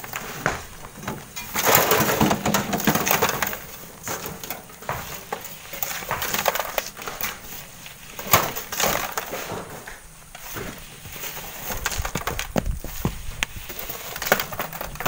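Stones and gravel being loaded by hand into metal wheelbarrows: gritty scraping and crunching with scattered sharp knocks of rock on rock and metal, loudest from about two to four seconds in.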